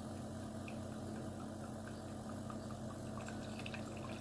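Chefman single-serve coffee maker winding down mid-brew: a steady low hum with a few faint drips falling into the cup. The machine is shutting itself off early with water still in the reservoir, which the owner takes for a fault.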